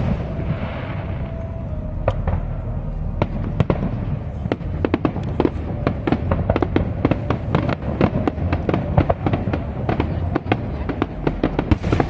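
Fireworks display: a few separate bangs at first, then from about four seconds in a dense run of rapid cracks and bangs from shells bursting overhead, over a low rumble.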